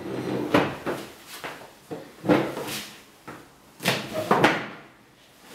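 About six irregular knocks, thuds and scrapes of a person moving about a small room, handling furniture as he goes to a desk.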